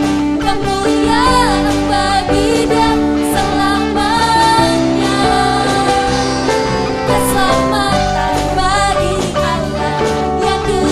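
Christian worship music with singing over a band, held chords and a steady accompaniment.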